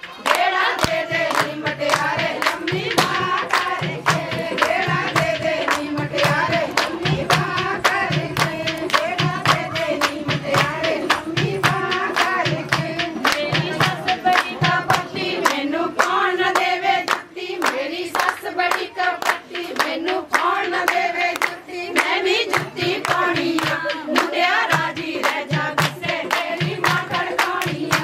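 A group of voices singing together to a steady beat of hand claps.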